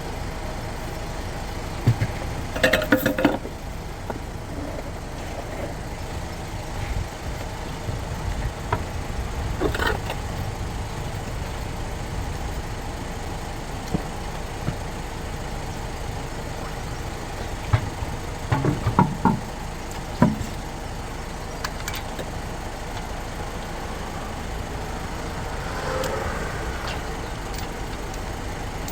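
Car engine idling steadily, with scattered metallic knocks and clatters over it, the loudest a few seconds in and again past the middle.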